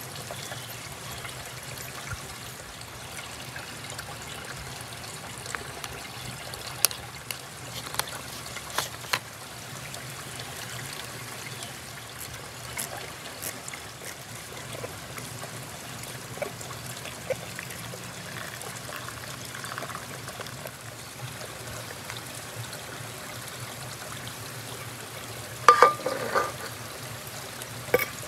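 Steady sound of a shallow river flowing over rocks, with a few light clicks and taps about a quarter of the way in and a louder brief clatter near the end.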